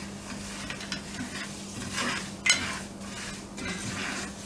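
Wooden spoon stirring powdered spice into hot mustard oil and seeds in a nonstick frying pan: repeated scraping strokes over a faint sizzle of the hot oil, with a sharp tap of the spoon about two and a half seconds in.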